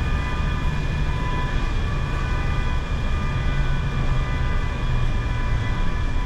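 Car driving: a steady low rumble of engine and road noise, with a faint steady high whine over it.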